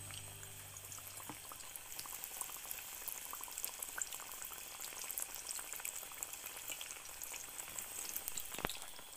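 Chickpea-battered vegetable strips deep-frying in soybean oil in a wok: steady sizzling with fine crackling. A single sharp click sounds near the end.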